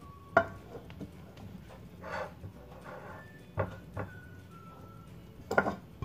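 Spatula scraping cooked food out of a frying pan onto a plate and knocking against the pan: a sharp clack near the start, a scrape about two seconds in, two clacks a little past three and a half seconds, and a loud run of clacks near the end.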